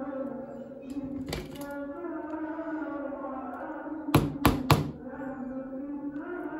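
Sharp clicks of pliers gripping a needle against a bamboo skewer: one about a second and a half in, then three in quick succession around four seconds in. Soft background music with steady held tones plays underneath.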